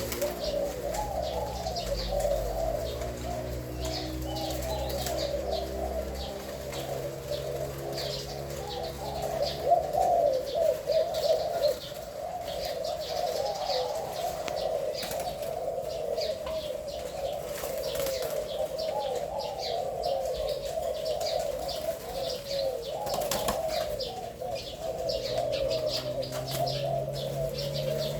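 A white fancy-variety dove cooing continuously, with small birds chirping higher up. The cooing grows louder for a couple of seconds about ten seconds in.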